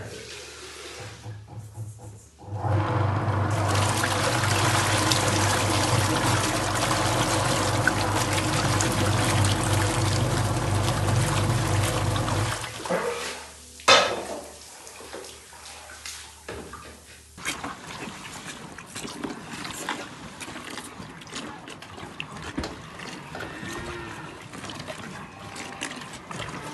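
Water rushing and churning in a stainless steel mixing tank over the steady hum of the agitator's motor, as calf milk powder is stirred in. It stops about thirteen seconds in, a sharp knock follows, and faint calf calls come near the end.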